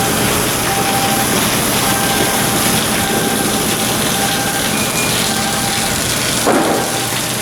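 Steady machinery noise with a faint, steady whine, and a single knock about six and a half seconds in.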